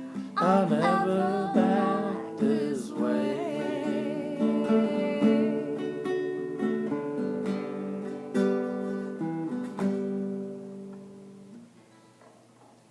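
Acoustic guitar with singing at the close of a folk song: a last sung line over strummed guitar, then a final chord held and ringing, which dies away about eleven seconds in.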